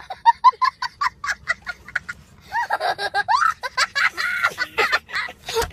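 A young boy laughing hard: a quick run of short, high-pitched ha-ha-ha for about two seconds, then longer laughs that glide up and down.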